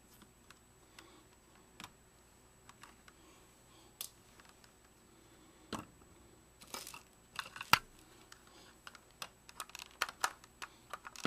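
Light clicks and scrapes of a small screwdriver and hand tool on the plastic housing of a Vivitar 2800 flash as a screw is worked out. The clicks are sparse at first and come faster and louder in the second half.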